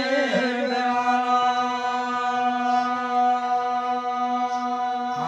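A male jagar singer's voice ends a sung line on one long held note, steady in pitch for about four seconds before it stops.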